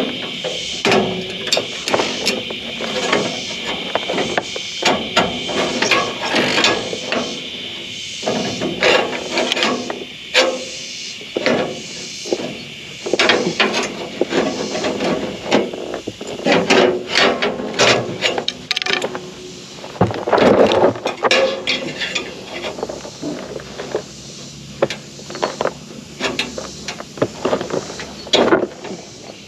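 Irregular metal clanks, knocks and clicks from hand tools working on a hay baler, with no steady rhythm.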